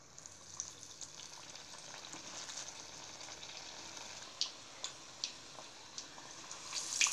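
Beetroot and lentil vadai batter deep-frying in hot oil: a steady sizzling hiss that starts as the batter goes in and builds, broken by sharp crackles and pops. The loudest pop comes near the end, as another portion of batter drops into the oil.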